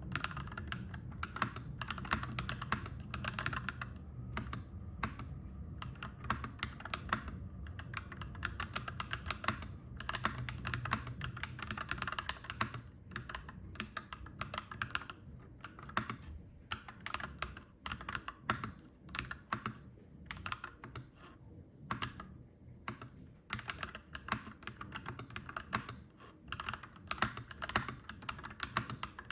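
Clacky mechanical keyboard being typed on steadily, in runs of keystrokes broken by brief pauses. A low rumble sits underneath in the first half and fades out about halfway through.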